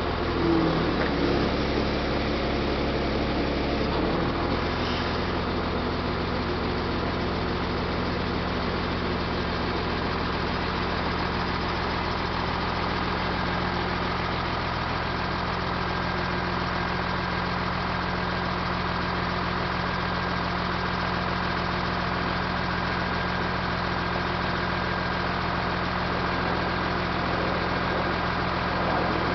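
Steyr 1291 truck's diesel engine running steadily, driving the hydraulics of its Palfinger loader crane while the boom is raised and extended. There is a little variation in the first few seconds, then an even, unchanging hum.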